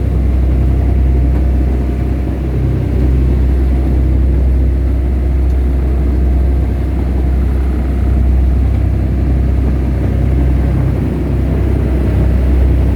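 An engine aboard a fishing boat running steadily, a loud, even low drone.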